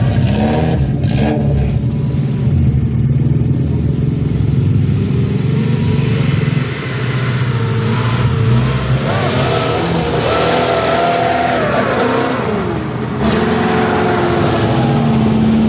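Suzuki Jimny off-road 4x4's engine running under load as it climbs a muddy track, revving up and down through the middle.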